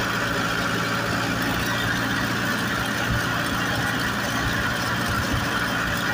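Tractor's diesel engine running steadily under way, heard from on board as it drives along a road.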